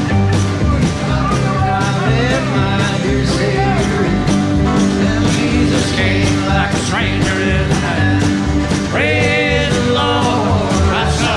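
A live country band playing a song, with a steady drum beat under the instruments.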